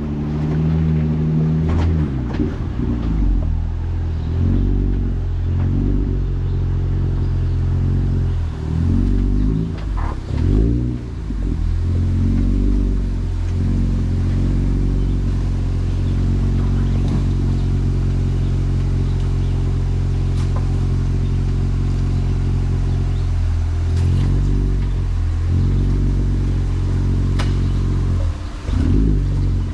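Jeep engine running at low revs while crawling over rocks, rising and falling several times in the first dozen seconds and again near the end, with a few faint knocks.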